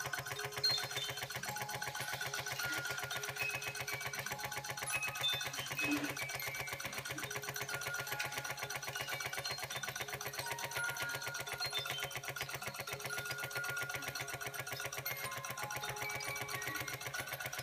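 Toy vertical live-steam engine running fast with a rapid, even mechanical clatter, belt-driving a Carette tin-plate organ-grinder drive model. Over it, the toy's music mechanism plays a tune of short high notes at changing pitches.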